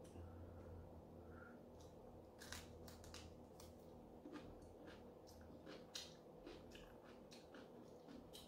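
Near silence with faint, scattered chewing and mouth clicks from eating takeout food, over a low steady hum.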